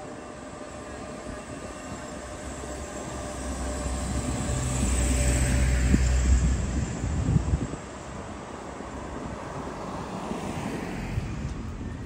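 A motor vehicle passing by: a low engine note and a hiss swell to a peak about six seconds in, then fade as the pitch falls.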